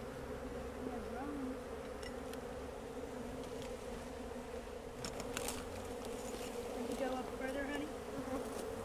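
Honeybees buzzing in a steady drone around their cut-out comb, with a few faint clicks about halfway through.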